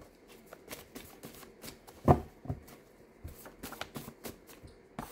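Tarot cards being shuffled and handled: an irregular string of light card flicks and taps, with one louder knock about two seconds in.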